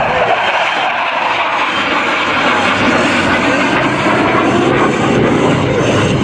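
F-16 Fighting Falcon fighter jet's engine roaring as it makes a solo high-speed pass, a loud, steady rushing roar.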